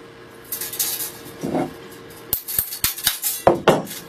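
Light clicking and rattling of a thin steel saw-blade strip being handled and fitted into the tip of a wooden saw arm, with a handful of sharp ticks between about two and three seconds in.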